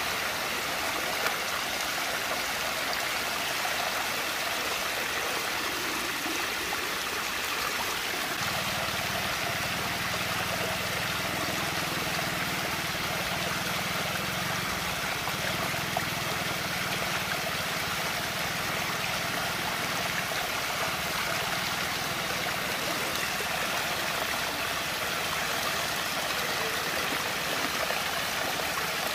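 Water swirling and draining down a whirlpool vortex: a steady rushing, gurgling sound.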